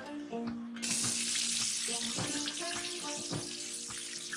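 Kitchen tap running into a stainless steel sink while tomatoes are rinsed under the stream by hand. It starts suddenly about a second in and runs as a steady hiss, over soft background music.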